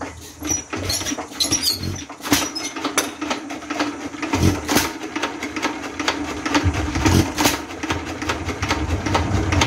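A vintage Associated Chore Boy hit-and-miss stationary engine is spun over by its flywheels and catches, fired by electronic ignition. It then runs with irregular, heavy low thumps from its firing strokes over the clatter of its valve gear and a steady hum.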